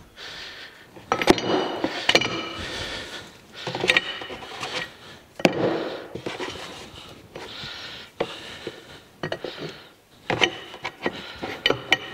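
Loose steel jaws of a four-jaw lathe chuck being set down into a plastic wash tub, clinking and scraping against the rusty chuck body and each other. It comes as a series of metallic clinks with short ringing, in clusters, with a busier run of clinks near the end.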